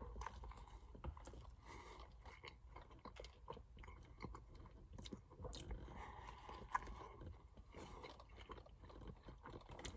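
A person chewing a mouthful of Whopper burger with lettuce, bacon and cheese, faint, with small irregular clicks.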